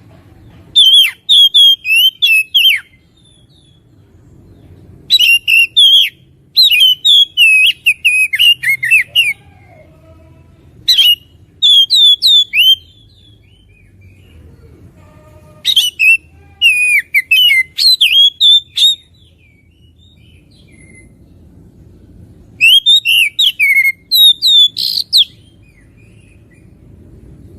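Oriental magpie-robin singing loudly in bouts of fast, sliding whistled phrases, five bouts of a few seconds each separated by short pauses.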